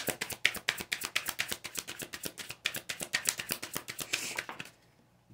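A deck of tarot cards being shuffled by hand: a quick run of crisp card snaps, several a second, that stops shortly before the end.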